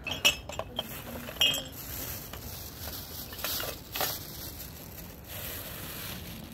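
Hard objects clinking and knocking together: a handful of sharp clinks in the first second and a half, the loudest about a second and a half in, then a couple of softer handling noises.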